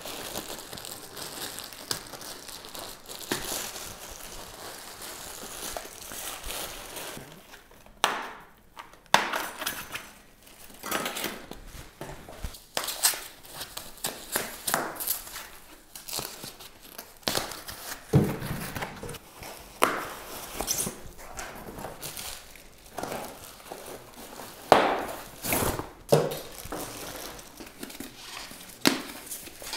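Foam packing sleeves and their tape being pulled and peeled off a bicycle frame: irregular crinkling and rustling in short bursts, with the odd scrape as the foam is tugged loose.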